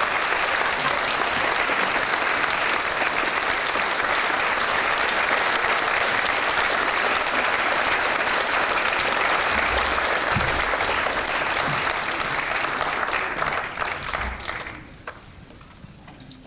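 Concert audience applauding steadily in a theatre, the clapping fading out near the end.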